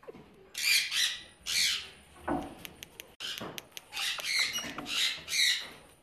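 A white cockatoo giving a run of harsh, high-pitched screeches, about six or seven short calls in quick succession.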